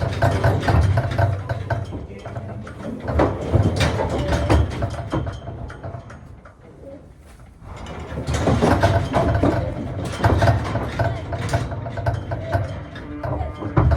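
Irregular metal clanking and rattling, with an engine running low and steady underneath; it dies down briefly about halfway through.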